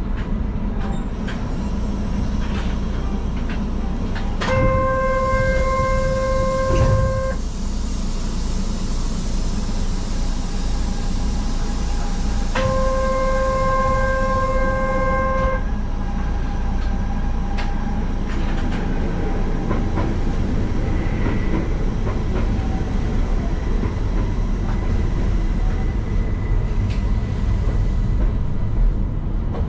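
Two long, steady train horn blasts, each about three seconds and some eight seconds apart, over the continuous low rumble of an electric train on the Keihan Keishin Line.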